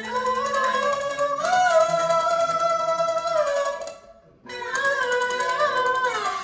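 Male Peking opera singer singing long, wavering held notes into a microphone, accompanied by a jinghu fiddle and a plucked lute. Everything breaks off briefly about four seconds in, then resumes.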